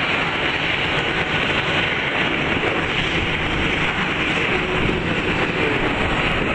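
Twin jet engines of a Boeing 767 airliner on final approach to land: a steady, even rush of jet noise.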